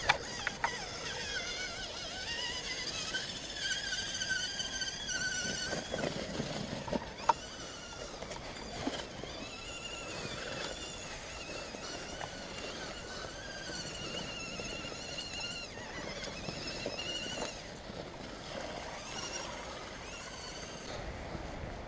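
Radio-controlled scale crawler trucks' small electric motors and gear trains whining, the pitch rising and falling as the throttle is worked, in stretches of one to several seconds.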